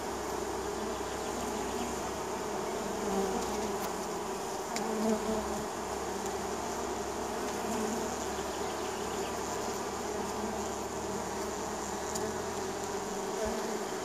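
Honey bees buzzing at a hive entrance: the steady hum of many bees, with brief louder swells about three and five seconds in.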